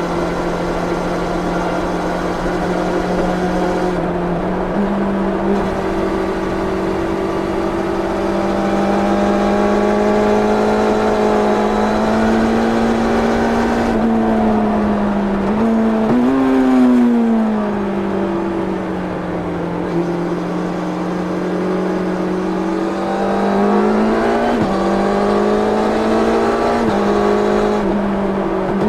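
1990 Yamaha FZR 600's inline-four on its stock exhaust, heard onboard with wind noise, running at steady mid revs. The pitch steps up about five seconds in, then rises and falls a few times later as the throttle opens and closes.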